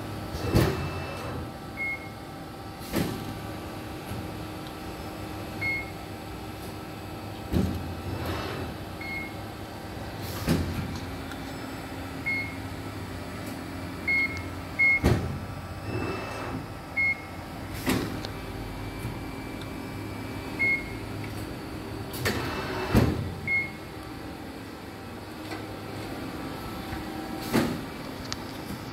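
Amada RG-80 hydraulic press brake running under power: a steady hum from the machine, broken by a sharp clunk every two to five seconds and short high beeps in between.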